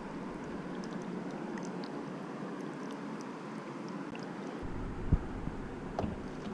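Wet squelching of hands working goose meat through a dark marinade in a bowl, over a steady background hiss. About five seconds in comes a sharp thump, and a second later a knock as the bowl goes onto a fridge shelf.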